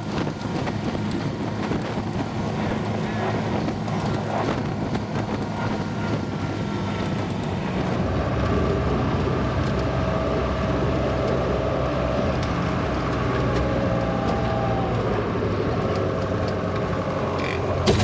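Engine of a 1963 Volvo LM225 wheel loader running steadily.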